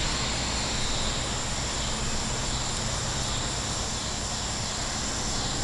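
Steady high-pitched drone of insects, with a low rumble underneath and no distinct clicks or knocks.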